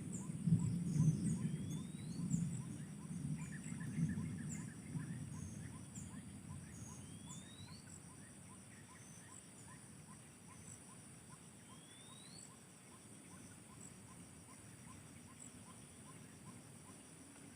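Birds and insects: a steady high insect drone with a quick chirp repeating about four times a second, scattered short bird chirps, and three short rising whistles about five seconds apart. A low rumble, loudest at the start, fades out over the first six seconds.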